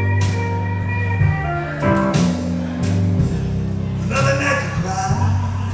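Live blues duo playing: an archtop electric guitar picking notes and chords over an upright double bass walking a bass line.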